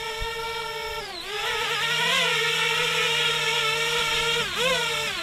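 Parrot Bebop 2 quadcopter's propellers and motors whining while it hovers close, weighed down by a 360 camera. The pitch dips briefly about a second in and again near the end as the throttle changes.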